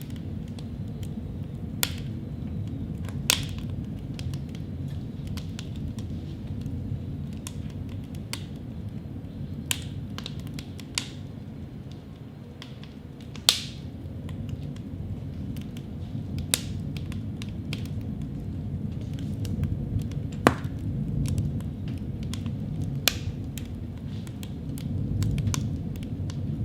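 Outdoor ambience through an on-camera shotgun microphone: a steady low rumble with a few scattered sharp clicks spaced several seconds apart.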